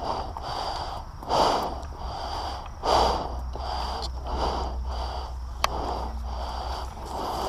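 A person breathing heavily close to the microphone, in and out in a steady rhythm with a louder breath about every second and a half. A single sharp click comes about two-thirds of the way through.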